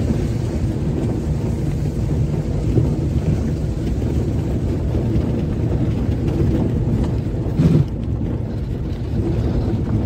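Vehicle engine and tyre rumble heard from inside the cabin while driving on an unpaved dirt road, with a single louder thump from a bump about seven and a half seconds in.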